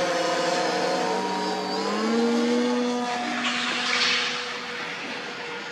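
Electric RC quadplane flying overhead in forward flight: the motor and propeller give a buzzing whine of several tones that steps up in pitch about two seconds in. A brief rush of noise comes around four seconds in, and the whine fades as the plane draws away near the end.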